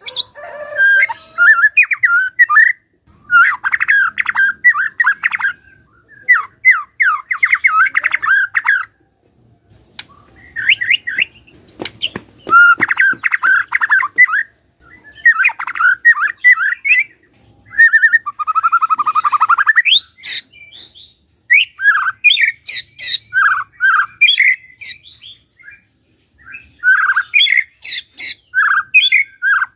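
White-rumped shama singing in a string of loud, varied phrases of quick trills and harsh rattling notes, each a couple of seconds long with short pauses between. One phrase ends in a fast upward sweep.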